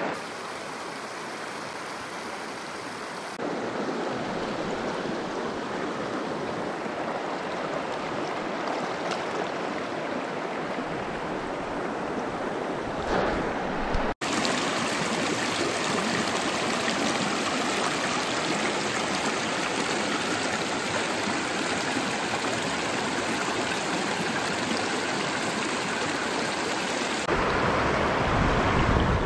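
Steady rush of a clear, rocky mountain river flowing over riffles, breaking off for a moment about halfway and growing louder near the end beside whitewater rapids.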